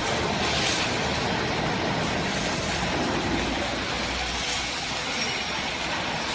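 Automatic hydraulic foam scrap baler running, a steady mechanical noise with short hissing swells.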